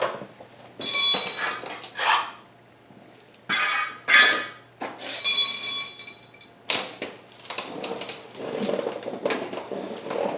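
Metal hand tools from a socket set clinking and clanking as they are handled, with about four sharp ringing clanks in the first six seconds, then a quicker run of lighter clicks and rattles.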